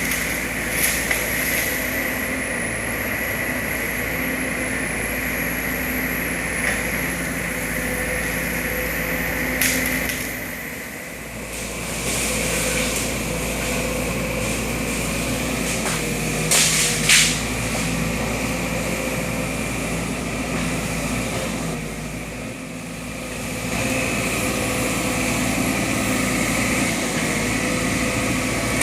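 Sumitomo SH210 hydraulic excavator's diesel engine running steadily, easing off briefly twice, with a few sharp knocks about ten and seventeen seconds in.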